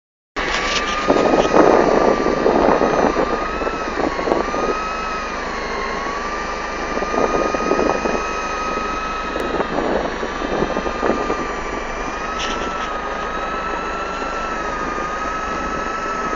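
A motor running steadily with a high whine that drifts slightly up and down in pitch. Bursts of rushing noise come over it, loudest in the first few seconds.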